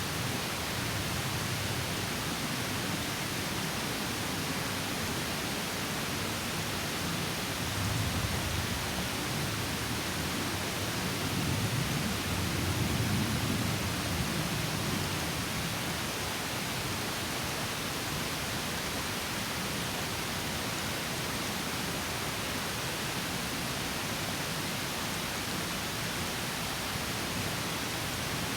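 Small stream pouring over a mini waterfall: a steady rush of falling water, with a fuller low rumble swelling briefly a third of the way in and again near the middle.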